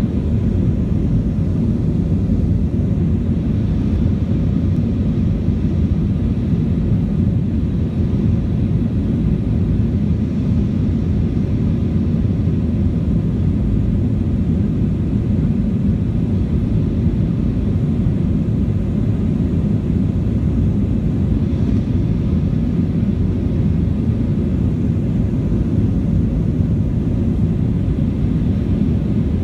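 Airbus A320 in flight, heard from inside the passenger cabin: a steady, unbroken low rumble of engine and airflow noise.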